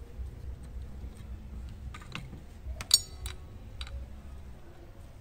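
Small metal clicks and clinks of a wrench and Allen key being fitted to a circular saw's blade bolt and guard, with one sharper ringing clink about three seconds in.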